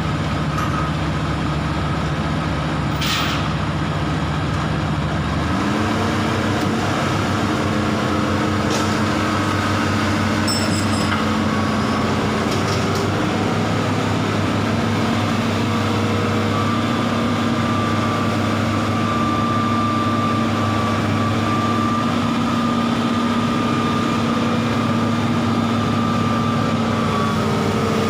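Excavator's diesel engine running steadily. About five seconds in it revs up to a higher, steady pitch and holds there.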